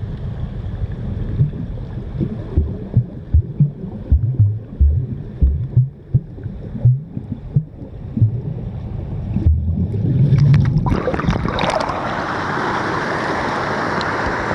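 Muffled underwater sound of a stream picked up by a submerged camera: a low rumble with irregular dull knocks. About eleven seconds in it changes to a louder, steady rush of water.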